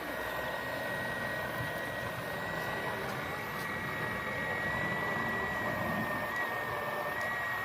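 Steady high-pitched whine of a radio-controlled construction model's electric motor over a noisy whir, the pitch wavering slightly.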